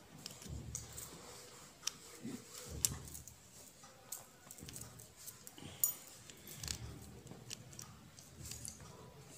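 Turban cloth rustling and swishing as it is pulled and wrapped around the head, with scattered small sharp clicks and soft thumps of handling.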